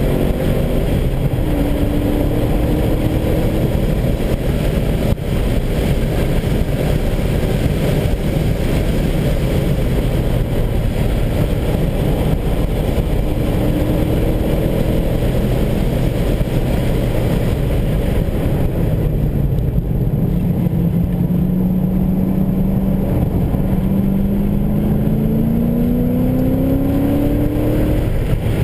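BMW E39 M5's S62 V8 at track pace, heard inside the cabin with tyre and wind noise. The engine note rises briefly near the start, holds lower through the middle, then climbs steadily over the last third as the car accelerates hard.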